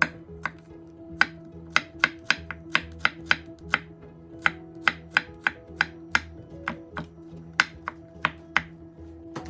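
Kitchen knife chopping vegetables on a cutting board: sharp, irregular knocks about two a second, over background music.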